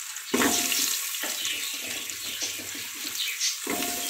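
Carrot pieces dropped by hand into hot ghee in an aluminium pressure cooker: a sudden sizzling hiss starts about a third of a second in, with a scatter of small knocks as pieces land, and another burst of hiss near the end.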